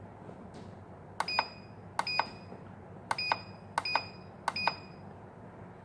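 Control buttons of a TIMI NC6000 banknote counter pressed five times, each press a click with a short high beep, as the counting-speed setting is stepped through.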